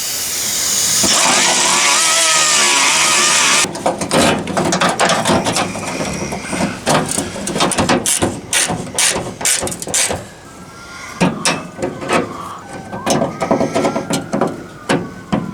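Rotary tool with a long-nose burr grinding open a too-narrow gap in a new tailgate handle, running steadily and stopping abruptly about three and a half seconds in. After it comes a run of irregular clicks and knocks as the parts are handled and fitted together.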